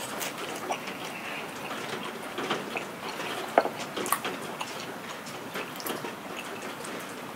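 Steady rain falling, a soft even patter with scattered drips ticking through it, and one sharper tick about three and a half seconds in.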